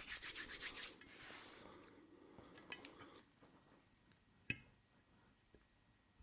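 A quick scraping rub, about ten strokes in the first second, then soft handling sounds and a single sharp click about four and a half seconds in.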